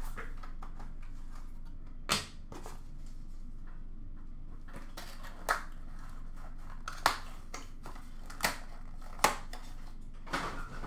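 Hands opening and handling a hockey trading-card box and its packaging: about ten sharp clicks and crinkles, spread irregularly over low room tone.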